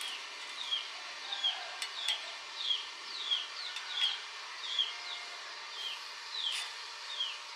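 A bird repeating a short, high, falling chirp about ten times, at slightly uneven intervals of under a second, over a steady background hiss.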